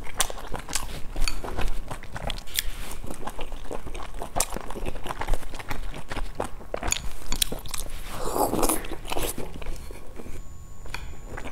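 A person chewing boiled dumplings: wet mouth smacks and clicks of chewing, repeated irregularly throughout. About eight seconds in comes a louder rushing sound lasting about a second.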